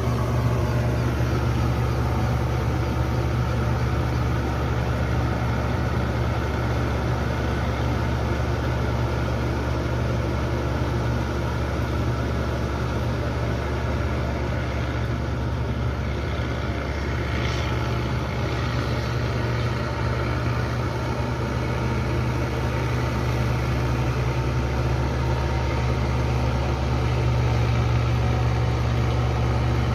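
Engine of farm machinery running steadily at a constant speed, a low, even hum that does not change.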